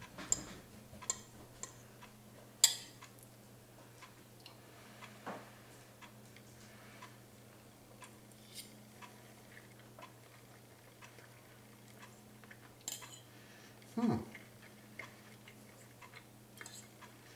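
A fork clicks and scrapes against a plate while someone eats, in scattered light taps with the sharpest one a few seconds in. A faint steady hum runs underneath.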